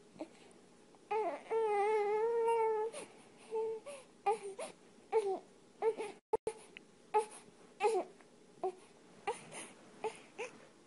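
A young baby crying: one long wavering wail about a second in, then a string of short, broken cries.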